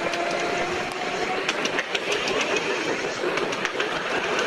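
Electric tram running along narrow-gauge track: steady rumble of steel wheels on rail with scattered clicks from the rail joints, and a steady hum in the first second or so.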